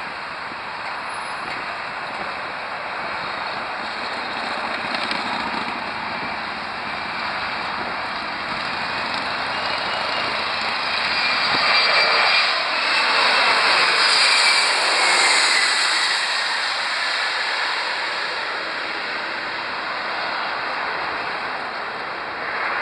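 Twin rear-engined regional jet passing low overhead on final approach. The jet noise builds to its loudest about twelve to fifteen seconds in, with an engine whine that falls in pitch as the aircraft goes over, then fades as it heads down toward the runway.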